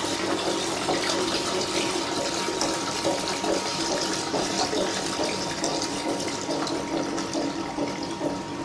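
Warm rinse water running steadily out of a soft-serve ice cream machine's dispensing spouts into a plastic jug as the machine is drained after its cleaning cycle, over a steady hum from the machine, which is still running in clean mode.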